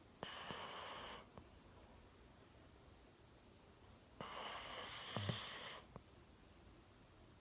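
Golden retriever snoring in deep sleep: two long, hissy snoring breaths about four seconds apart, the second with a brief low rumble partway through.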